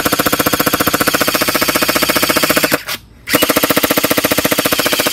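Electric full-auto gel blaster (an airsoft-style gun firing Orbeez water beads) shooting in two long bursts of very rapid clicks over a steady motor whine; the first burst stops about three seconds in and the second starts half a second later.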